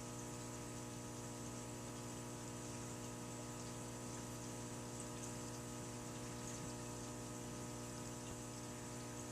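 Steady electrical or mechanical hum, unchanging, with many fixed tones over a faint hiss, like a running appliance or pump.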